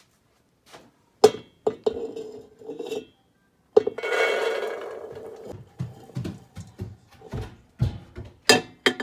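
A bowl knocks against a metal cooking pot, and the pot rings after each knock. About four seconds in comes a rush of loose elderberries pouring into the pot. More knocks and clatter follow, with two sharp ones near the end.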